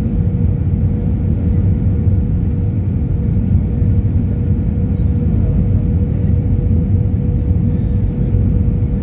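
Airbus A320 jet engines on approach: a steady low rumble with a steady hum held at one pitch.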